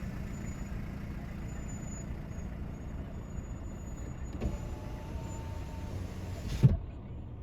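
Car's engine idling, heard from inside the cabin. An electric window winds up and shuts with a thump near the end, after which the outside hiss is cut off.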